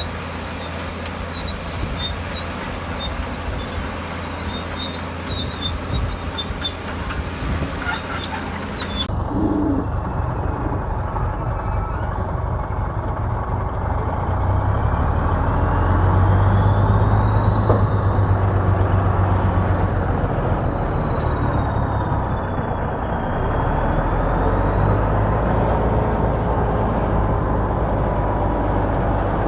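Heavy diesel earthmoving machinery running steadily, its deep engine drone growing louder around the middle, with a faint high whine that slowly wavers in pitch; the recording changes abruptly about nine seconds in.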